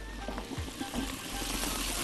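Chopped onion starting to sizzle in ghee in a pot as the fat heats. The frying noise builds over the second half, over soft background music, with a few light clicks.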